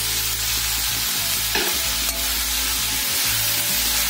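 Diced chow chow (chayote) sizzling as it fries in a kadai, stirred with a metal spatula that scrapes and taps the pan a few times.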